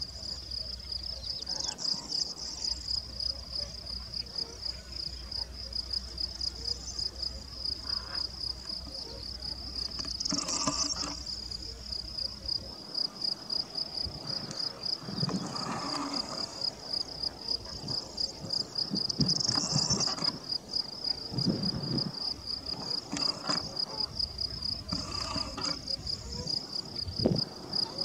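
Insects, cricket-like, chirping: a steady, high-pitched, rapidly pulsing trill. A few short, lower sounds break in every few seconds.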